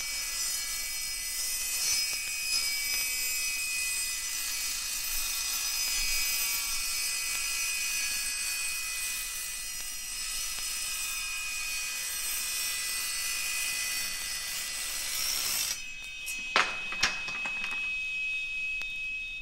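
Sawing from a vintage sound-effects LP, going steadily for about sixteen seconds. Then it stops, and two sharp knocks follow about half a second apart.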